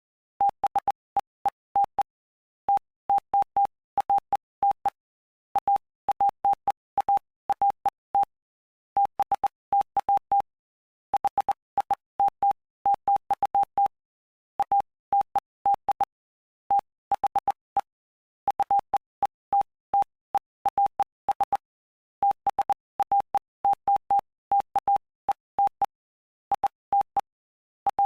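Morse code sent as a single pure tone just under 1 kHz, keyed on and off in dots and dashes with short pauses between letters and words, and faint clicks as each element starts and stops. It is a practice recording spelling out the text of Mark chapter 5 of the Bible.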